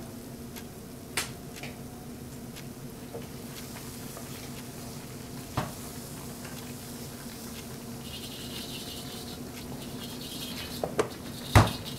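Stir-frying at a wok station: food sizzling in the pan under a steady low hum, with a few sharp clicks of utensils. The sizzle brightens about two-thirds of the way through, and a hard knock near the end is the loudest sound.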